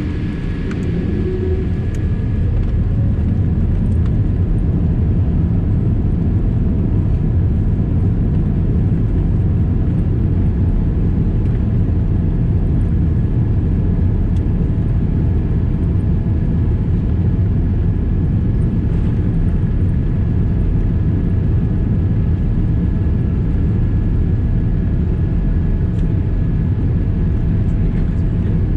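Cabin noise of a Boeing 787-8 moving on the ground: a steady low rumble from the engines and airframe, with a thin steady whine over it. It grows a little louder in the first couple of seconds, then holds.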